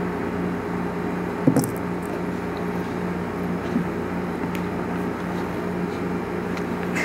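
Steady low indoor hum, like building ventilation, with a few faint clicks and a brief knock about one and a half seconds in.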